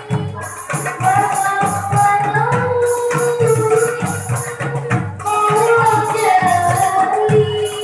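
Marawis ensemble playing: a girl's voice sings a wavering melody over an even beat of marawis hand drums and a large barrel drum, with bright jingling percussion. The drumming breaks off briefly just after the start, then comes back in.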